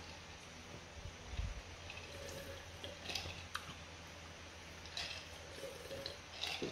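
Faint sips and swallows of iced water from a glass mug, with a few small scattered clicks.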